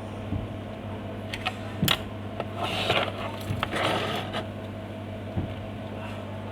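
Hot-air rework station blowing steadily as it reflows solder on a replacement tantalum capacitor on a laptop motherboard, with a steady hum throughout. A few sharp light clicks come about one and a half to two seconds in, and a louder hiss swells between about three and four seconds in.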